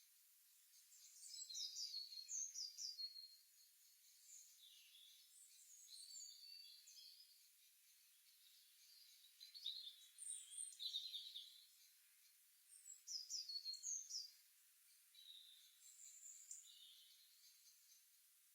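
Songbirds chirping in short, rapid phrases, with louder bursts about a second in, near the middle and again a few seconds later, and softer calls between, over a faint steady hiss.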